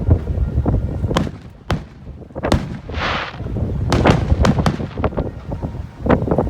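Fireworks going off: a rapid string of sharp bangs and booms over a low rumble, with a brief hiss about halfway through.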